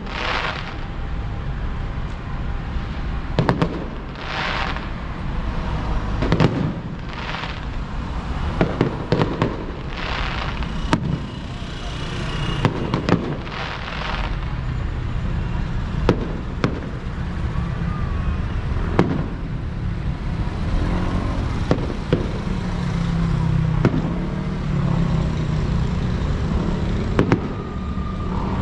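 Distant fireworks display: sharp bangs every second or two, several of them trailing into about a second of crackling hiss, over a steady low rumble.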